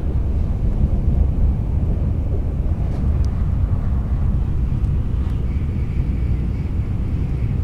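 Steady low rumble of a Shinkansen train running at speed, heard from inside the passenger cabin, with a couple of faint clicks about three and five seconds in.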